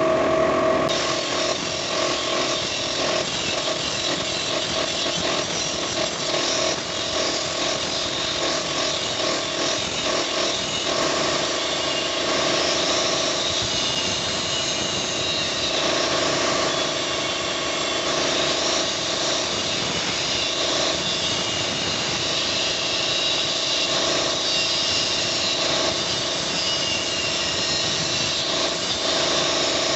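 A power tool at work on metal: a steady motor whine, with a rough cutting or grinding noise that comes in about a second in and carries on.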